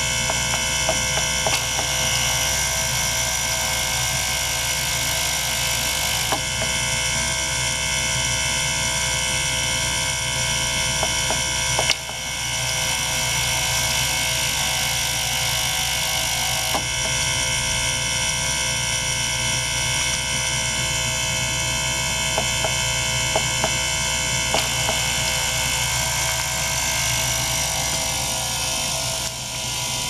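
Small ultrasonic cleaner running with water circulated through its tank by a small pump: a steady electric buzz made of many held tones, with scattered faint clicks. The buzz shifts in character about 6, 12 and 17 seconds in.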